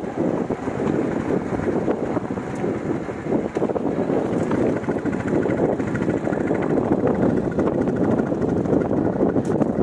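Royal Enfield Bullet 350 single-cylinder engine running steadily under way, mixed with wind buffeting the microphone.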